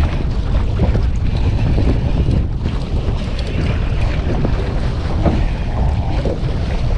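Wind buffeting the microphone over choppy open sea, with the water washing around a small boat.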